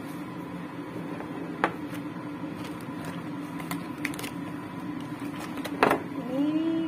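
Steady kitchen hum over a pan of curry simmering on the stove, with a few sharp clicks. A louder knock comes a little before the end as a box of curry roux is handled.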